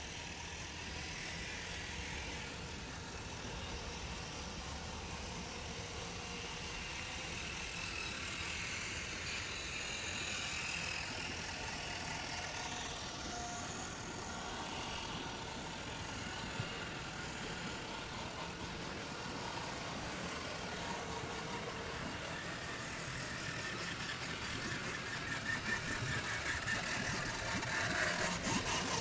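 Steady low outdoor rumble, like distant road traffic. Near the end the rush of flowing canal water beside a water wheel grows louder.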